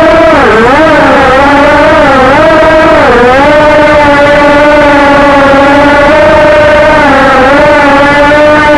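A person imitating a quadcopter drone with their mouth: a loud, continuous buzzing hum. Its pitch wobbles up and down several times over the first three seconds, as if throttling, then holds nearly steady.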